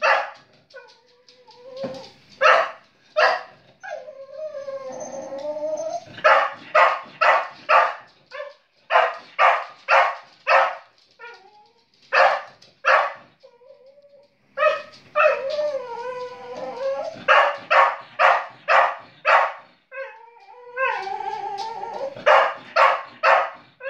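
A dog barking in quick runs of sharp barks, broken three times by drawn-out, wavering howls: it is protesting at the phone camera pointed at it.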